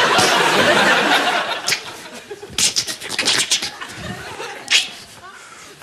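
Studio audience laughing loudly, dying away over the first two seconds, followed by a quick run of short sharp clicks and hisses near the middle and one more near the end.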